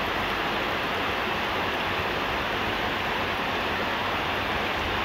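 Steady rushing noise of heavy rain mixed with the wind of a large electric fan, even throughout with no distinct events.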